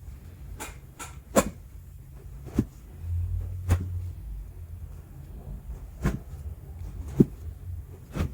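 A scattering of short, sharp clicks and knocks during hands-on chiropractic treatment, the loudest a little over a second in and near the end, over a low shuffling rumble about three seconds in.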